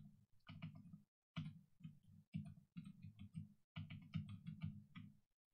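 Typing on a computer keyboard: quiet keystrokes in quick, irregular runs with brief pauses.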